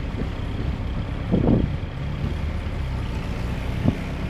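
A WWII jeep's four-cylinder engine runs steadily as the vehicle drives along, a continuous low drone. There is a short louder burst about a second and a half in and a sharp knock near the end.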